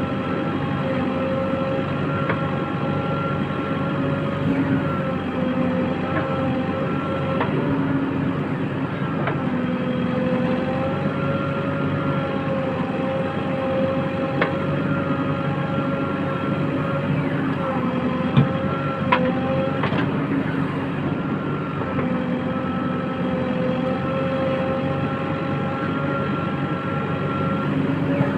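JCB 3DX backhoe loader's diesel engine running steadily under working load, its pitch dipping and recovering several times as the hydraulics are worked. A few sharp knocks come through around the middle.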